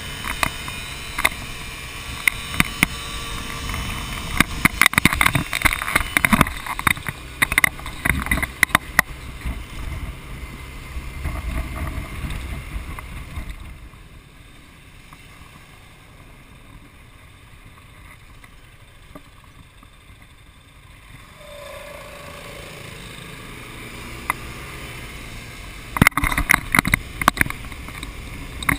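Wind buffeting and crackling on a motorbike-mounted camera's microphone over the hum of the engine while riding. About halfway through it drops to a quieter, steadier engine hum, and the gusty buffeting returns near the end.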